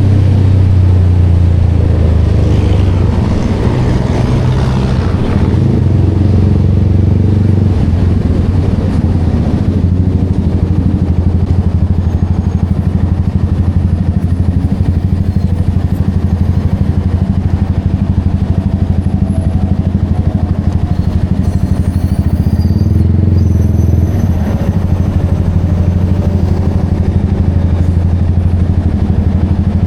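Yamaha XSR motorcycle engine running through an aftermarket Vmax exhaust canister, a steady low exhaust note that swells briefly about three seconds in and again about twenty-five seconds in.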